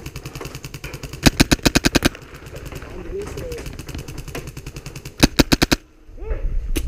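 Airsoft gun firing on full auto in rapid bursts of about a dozen shots a second: one burst about a second in and a shorter one near five seconds, with fainter rapid firing in between. Another burst starts right at the end.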